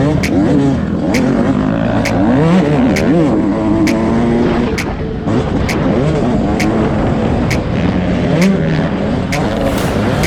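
Dirt bike engines, more than one, revving up and down as the riders open and close the throttle over a track of jumps.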